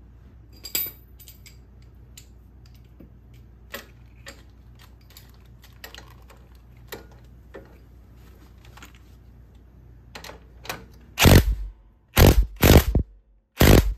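Light metallic clicks and clinks as the lift-link bracket and its bolt are fitted by hand. Then, near the end, a cordless Ridgid power driver runs in four short bursts, driving the bolt home.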